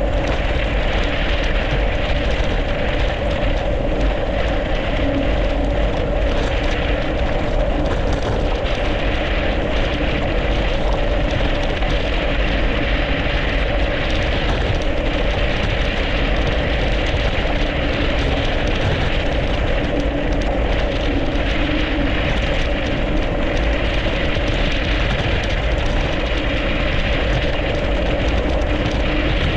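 Steady wind rumble on the microphone and the drone of bicycle tyres rolling over packed snow and ice on a fast downhill ride, with a constant hum running underneath.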